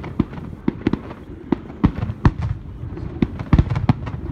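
Fireworks finale: aerial shells bursting in quick, irregular succession, about ten sharp bangs over a low continuous rumble, the loudest a little past the middle.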